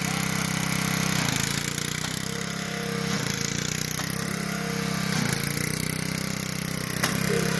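Engine of a Sears Lil' Poppy riding mower running steadily, its note dipping and picking back up a few times as it is driven.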